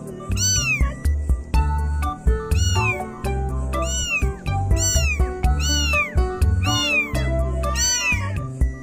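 A cat meowing over and over, about once every three-quarters of a second, each meow rising then falling in pitch, over background music with a steady bass beat.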